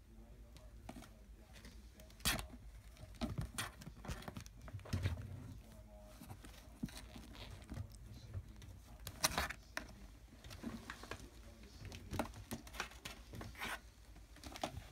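Irregular scratching, rustling and soft knocks from a kitten pawing and scrabbling on a knitted blanket close to the microphone. A few sharper clicks stand out, the loudest about two seconds in and another past the middle.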